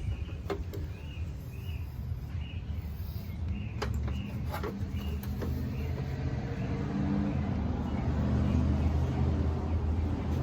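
A motor vehicle's engine running with a steady low hum that slowly grows louder, with a few sharp light clicks.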